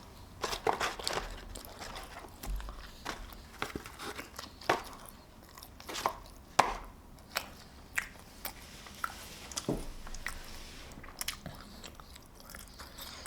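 A person chewing and biting food close to the microphone, with irregular sharp mouth clicks and wet smacks.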